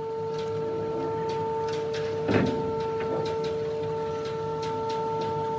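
A steady, high-pitched tone at several fixed pitches, with faint regular ticks about twice a second and one brief louder knock about two seconds in.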